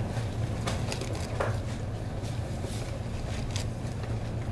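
Steady low hum, with a few soft rustles and scrapes as the pages of a Bible are turned at a pulpit.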